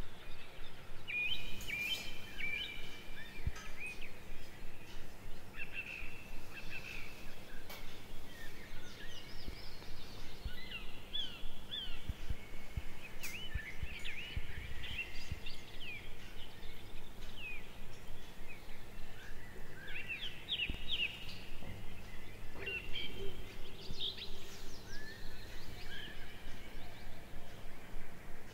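Several small birds chirping and calling in short, quick notes throughout, over a steady low background hum, with a few sharp clicks.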